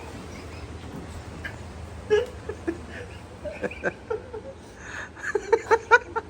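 A person laughing in short bursts, ending in a quick run of rapid laughs, over a steady low hum.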